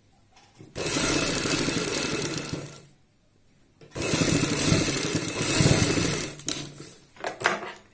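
Sewing machine running in two stitching runs of about two seconds each, with a brief stop between them, as it topstitches piping onto kurti fabric. A few short knocks and clicks follow near the end.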